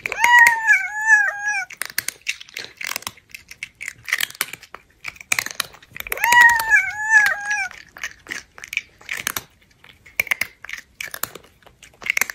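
A cat's meow-like cry, followed by a run of crisp crunching and chewing sounds. The pair repeats: a second cry about six seconds in, then more crunching.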